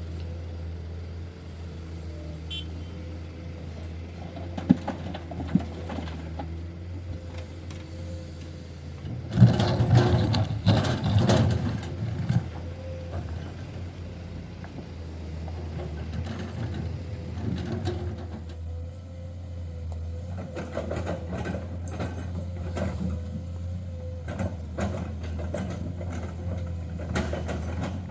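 Heavy diesel engine running steadily at a low hum, with a couple of sharp knocks and then a few seconds of loud, noisy rattling about a third of the way in.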